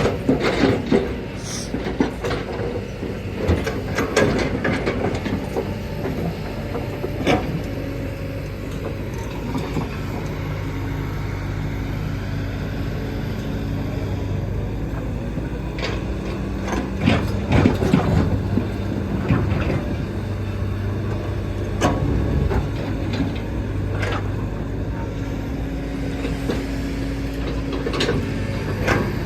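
Kobelco hydraulic excavator's diesel engine running steadily, with scattered sharp knocks and clanks from the machine at work.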